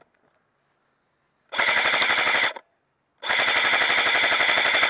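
Airsoft rifle firing two full-auto bursts, one about a second long and then one of nearly two seconds after a short pause, each a fast, even rattle of shots.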